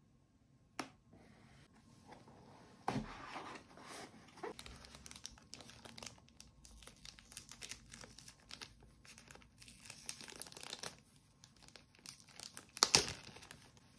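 Plastic packaging bag crinkling and tearing as it is unwrapped by hand, in irregular crackles, with the loudest crackle near the end. A single click comes about a second in.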